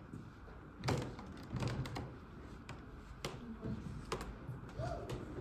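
A few scattered sharp clicks and knocks at irregular intervals over low room noise.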